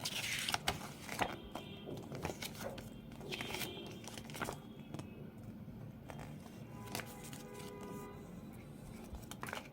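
Handling of the smartwatch box and its contents: scattered soft rustles, taps and clicks of cardboard and plastic, over faint background music.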